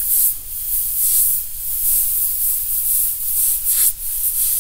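Airbrush spraying paint in fine lines: a steady hiss of air that swells in short spurts several times.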